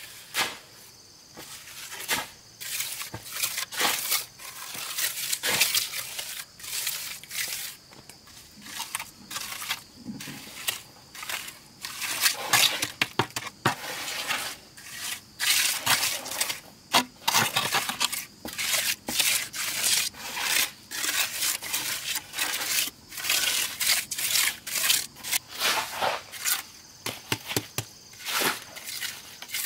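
Irregular, rapid crunching and tearing sounds, many short sharp strokes in quick succession, denser in the second half.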